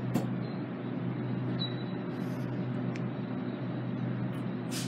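Steady low hum and hiss of a GO Transit train standing idle at a station platform, with a few faint clicks.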